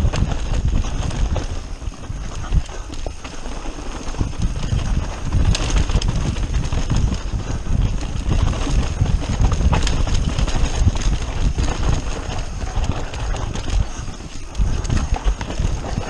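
Mountain bike descending fast over a rough dirt forest trail: tyres on loose ground and the bike rattling and knocking irregularly over bumps, with a low rumble of wind on the microphone.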